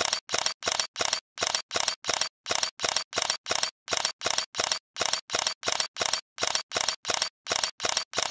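Camera shutter clicks repeating in rapid succession, about three a second, each a short sharp burst with silence between.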